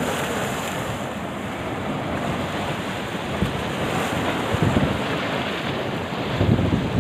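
Wind buffeting the microphone over the steady rush of choppy sea, with stronger low gusts about four and a half seconds in and again near the end.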